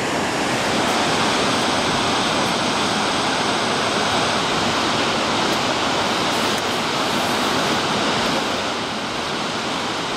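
Steady rushing of Stigfossen, a tall mountain waterfall, heard close by; it gets a little quieter near the end.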